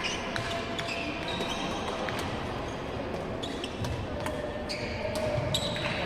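Badminton play on an indoor court: sharp, irregular racket hits on the shuttlecock and short shoe squeaks on the court floor, over steady hall noise.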